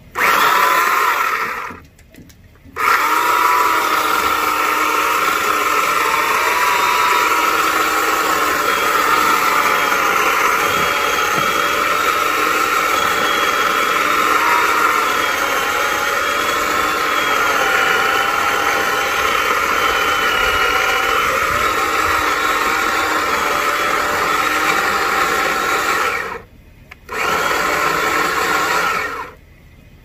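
Handheld battery-powered saw cutting through a dead avocado tree trunk. It makes a steady motor whine that wavers in pitch as it bites. It runs in three bursts: a short one, a long one of about twenty seconds, and a short one near the end, with brief stops between them.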